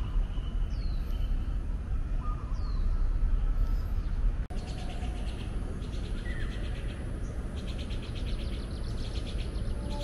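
Outdoor ambience of birds calling, with a few short downward-sliding whistles, over a low steady rumble. After a cut about four and a half seconds in, a fast, evenly pulsing high chirring takes over, with an occasional bird call.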